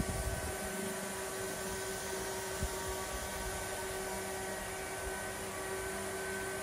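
Steady machine hum with constant high whining tones over an even hiss.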